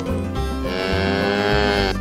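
A cow mooing once, a long call that drops in pitch near its end, over background music with a steady beat.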